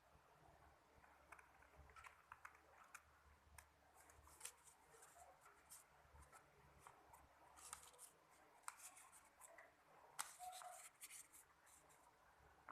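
Faint rustling and crinkling of a sheet of notebook paper being folded and creased by hand, in irregular bursts with a few sharper clicks.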